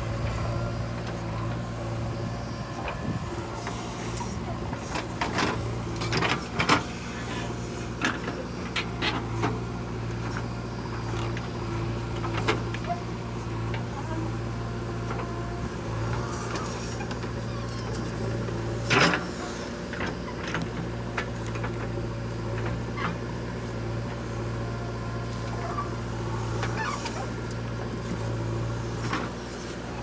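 JCB 3DX backhoe loader's diesel engine running steadily under hydraulic load as the backhoe digs and dumps soil, with scattered clanks and knocks from the bucket and arm, the loudest about 19 seconds in.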